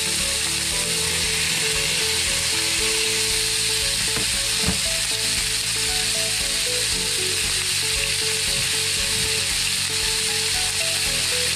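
Strips of veal frying in hot melted ghee in a frying pan: a steady sizzle, with one sharp click about halfway through.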